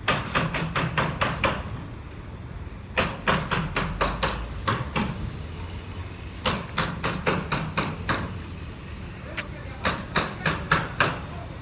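Hammer driving nails into wood: four runs of quick blows, each of seven to nine strikes at about five a second, with short pauses between them.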